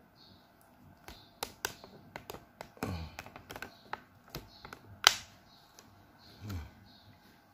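Irregular light taps and clicks, about a dozen, the sharpest a little after five seconds in, with two dull thumps, one near three seconds and one near six and a half.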